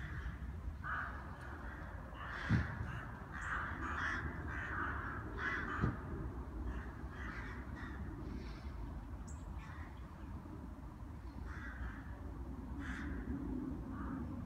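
A flock of rooks cawing, many harsh calls overlapping through the first six seconds or so, then fewer and more spaced, over a steady low rumble. Two short low thumps stand out, about two and a half and six seconds in.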